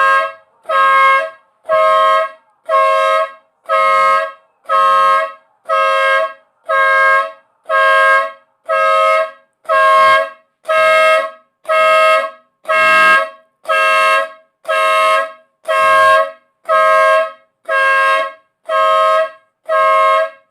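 Car horn sounding in steady, evenly spaced blasts about once a second, set off by the car alarm after the door pin switch was pulled.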